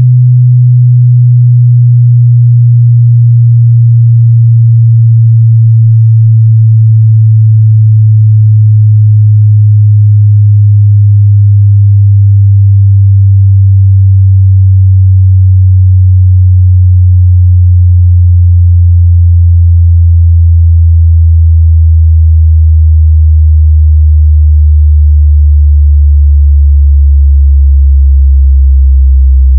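Pure sine test tone, loud and steady, sweeping smoothly down from about 116 Hz to about 60 Hz at 2 Hz per second. It is a bass frequency sweep for testing subwoofers and speakers and finding rattles in a car.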